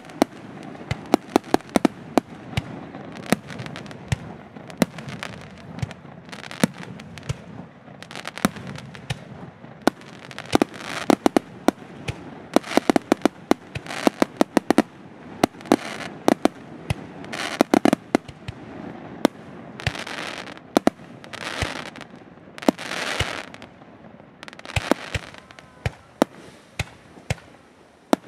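Display fireworks: aerial shells bursting in quick, irregular succession, many sharp bangs close together, with several longer hissing bursts in the second half.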